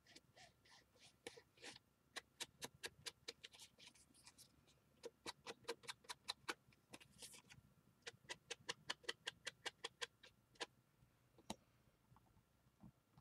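Ink blending tool tapped rapidly against the edges of a paper pocket on a tabletop, distressing them with ink: runs of quick light taps, about five a second, broken by short pauses.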